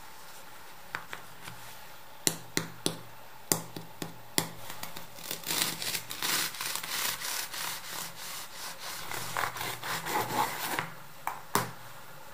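A few sharp cracks, then a knife sawing down through a Mexican coffee bun for several seconds, its crisp cookie crust crackling under the blade. Two more sharp cracks come near the end.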